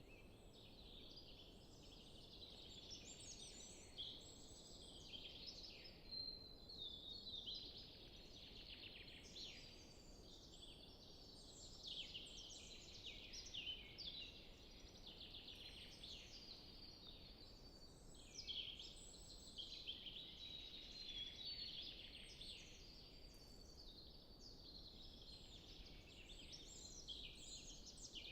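Several songbirds singing at once in a forest, a faint and continuous mix of overlapping high-pitched warbling and trilling phrases over a quiet steady background hiss.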